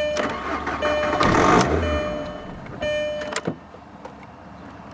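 2002 Volkswagen Jetta 2.0 engine cranking, catching briefly and dying about two seconds in, the start-then-stall fault of a car that has sat a long time. A steady tone sounds on and off over it.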